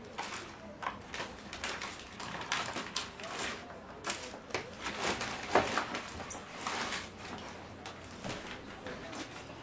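Paper burger wrappers and cardboard fast-food boxes rustling and crinkling as burgers are unwrapped and handled, with scattered small taps and clicks.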